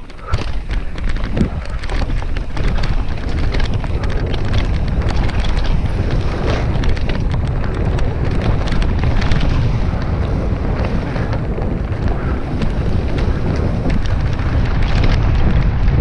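Wind buffeting the microphone of a downhill mountain bike camera, a steady loud rumble. Frequent small clicks and knocks from the bike running over rough trail sound through it.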